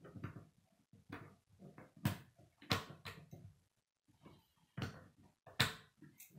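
Plastic K'nex rods and connectors clicking and knocking as they are handled and snapped together: a string of sharp, irregular clicks, the loudest about two to three seconds in and again near the end.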